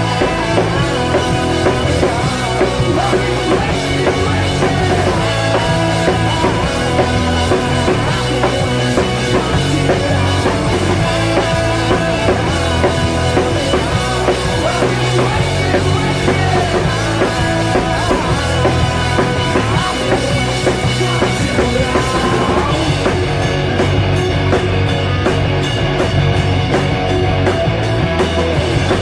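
Rock band playing live and loud: drum kit, bass and electric guitars. About three-quarters of the way through, a quick, even beat comes in at the top of the sound.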